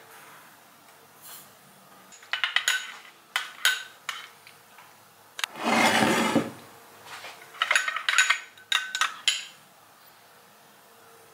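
A metal spoon clinking against a small glass bowl as sauce is stirred, in two clusters of sharp clinks, with a louder scraping noise about a second long around the middle.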